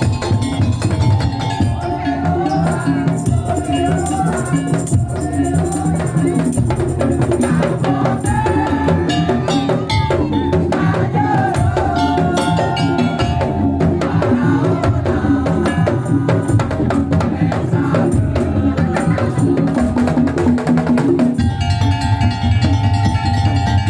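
Madurese daul (tongtong) music played loudly: driving drums and wooden percussion under a wavering melody line. About 21 seconds in, the melody gives way to steady held tones.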